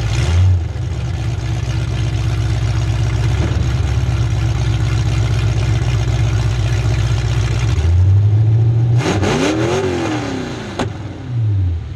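Demolition derby car's engine idling, heard from inside its stripped cabin. About nine seconds in it is revved up and back down once.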